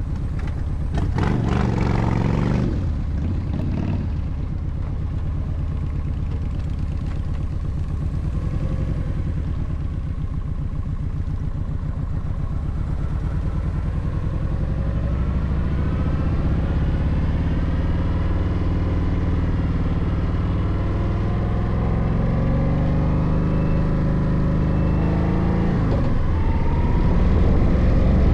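Kawasaki Vulcan 1700 Voyager's V-twin engine running on the move, with wind noise on the microphone. The engine pitch rises and falls as the speed changes, with a brief dip and rise near the end, and a loud rush of noise about a second in.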